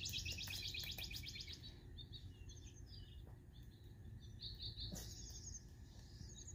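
Small songbirds chirping: a fast run of high chirps for about the first second and a half, then scattered single chirps, with one sharp click about five seconds in.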